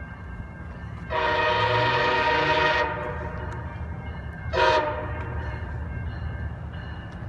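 MARC commuter train's locomotive horn sounding one long blast of about two seconds, then a short blast about three seconds later, over a low steady rumble.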